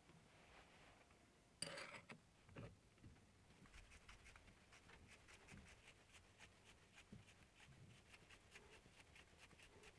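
Mostly near silence, broken by faint handling of a steel mini-lathe compound slide. There is a light knock of metal on the wooden bench about one and a half seconds in, then a run of faint, quick ticks.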